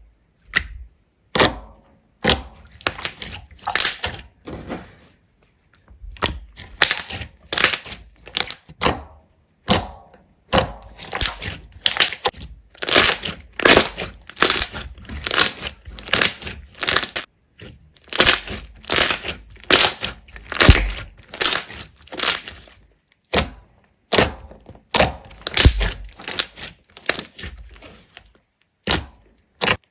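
Slime being pressed and squeezed, giving repeated sharp crackling and popping bursts about once or twice a second, broken by a few short silent gaps.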